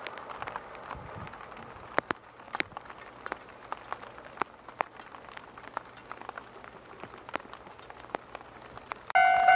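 Japanese railway level-crossing warning bell starts about nine seconds in, a loud ringing ding repeating about twice a second, the signal that a train is approaching. Before it there are only scattered faint ticks and clicks.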